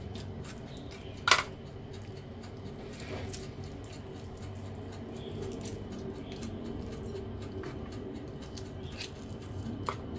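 A small knife clicking and scraping against a cutting board while hands work raw chicken drumsticks, with scattered small clicks and one sharp click about a second in, over a steady low hum.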